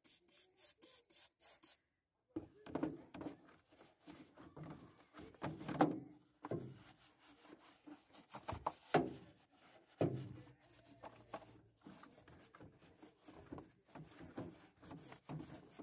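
About six quick squirts from a trigger spray bottle of engine degreaser in the first two seconds. Then a small detailing brush scrubs foamy plastic engine-bay parts in irregular back-and-forth strokes, with light clicks where it knocks against the plastic.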